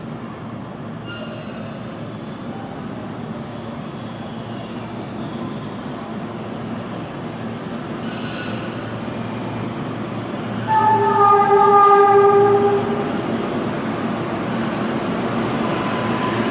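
R143 subway train approaching with a steady rail rumble that slowly grows louder, with a couple of brief high-pitched wheel squeals. About eleven seconds in it sounds its horn for about two seconds, the loudest sound here.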